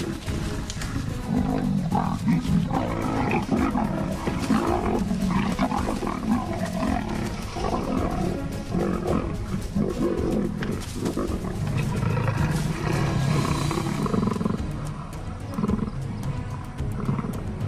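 Leopards fighting, growling and snarling loudly throughout, with background music underneath.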